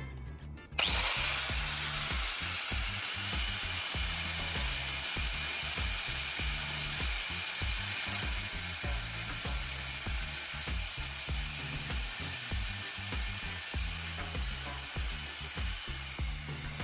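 Angle grinder running, with a steel nail turned in a cordless drill's chuck ground against its disc to shape a welding tip: a steady grinding noise that starts suddenly about a second in and runs almost to the end. Background music with a steady beat plays underneath.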